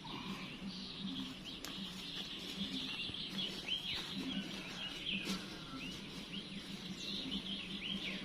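Many small birds chirping, quick short calls all through, over a faint steady low hum.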